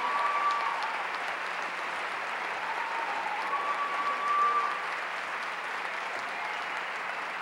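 Audience applauding steadily, with a couple of long held calls rising above the clapping, one at the start and one around the middle.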